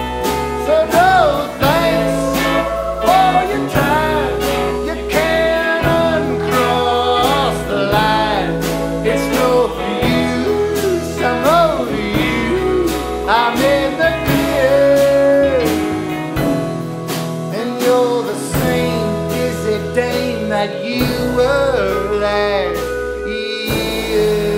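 A small band playing alternative folk rock live: a man singing over hollow-body electric guitar, lap slide guitar, upright bass and drums.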